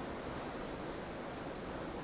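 Winter mountain wind blowing steadily, a dense even rushing noise with no gusts or breaks.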